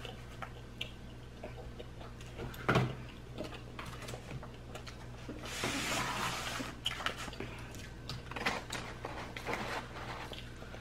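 Quiet table-handling sounds: scattered small taps and knocks, one sharper knock about three seconds in, and a rustle of the cardboard pizza box a little past halfway, over a steady low hum.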